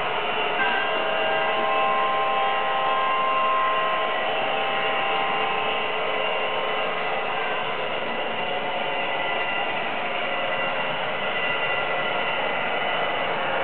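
HO scale model trains running on a DCC layout: a steady whir with several thin, steady whining tones from the locomotives' motors and sound units.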